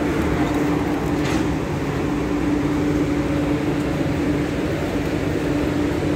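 Steady low hum with an even rushing noise on an underground metro platform, with an MTR Q-Train standing alongside just after its door-closing chime.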